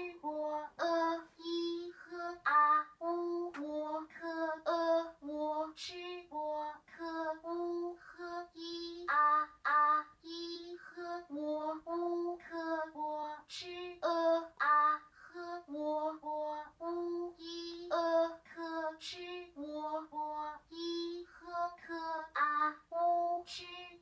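Auditory BCI speller stimuli: short recorded PinYin syllables in a high voice, played one after another from a ring of loudspeakers at about two a second. Each syllable is the cue that the EEG-capped user attends to in order to choose a character.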